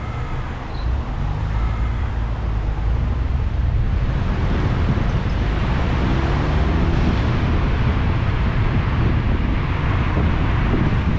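Car driving on a city road: a steady low rumble of engine and road noise, with wind rushing over the microphone. The noise grows louder about four seconds in and stays up.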